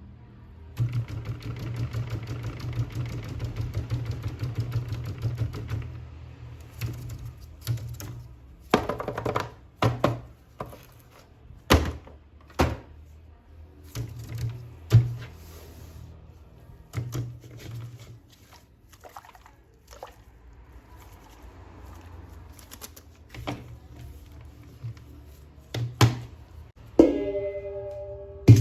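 Plastic action figures and their packaging being handled. A few seconds of continuous rustling give way to a dozen or so sharp, separate knocks and clicks, with a short squeak near the end, over faint background music.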